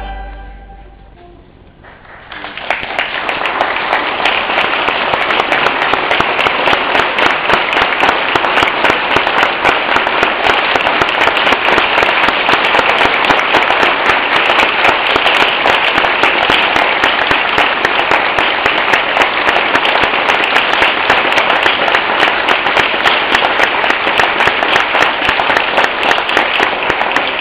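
The choir's last sung chord dies away in the cathedral's long echo, then about two seconds in the audience breaks into sustained applause, a dense, even patter of many hands that holds steady.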